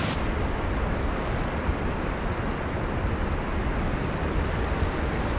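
Niagara Falls' water pouring down: a steady, even rushing noise with no breaks.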